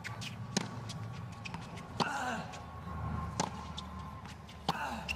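Tennis ball struck back and forth by racket strings in a baseline rally on a hard court: four sharp pops at an even pace, about 1.4 s apart.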